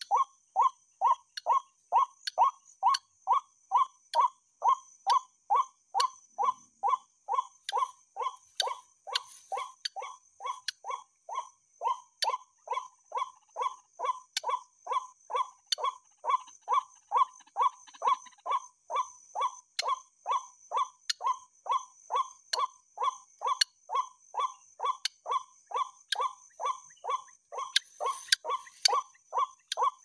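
White-breasted waterhen (ruak-ruak) call played over a Bluetooth speaker as a lure: one short call note repeated evenly, about two to three times a second, at an unchanging level.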